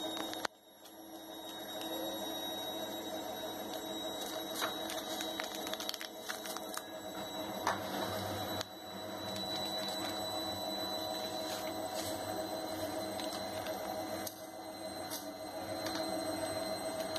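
A steady hum, with a few faint crinkles and ticks from a paper sugar sachet being torn open and shaken out into a plastic measuring spoon.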